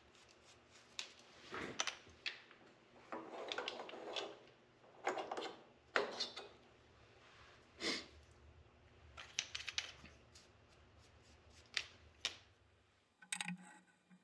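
Faint, irregular clicks, scrapes and rustles of hands handling a spindexer and the small metal bolt just milled in it, over a faint low hum.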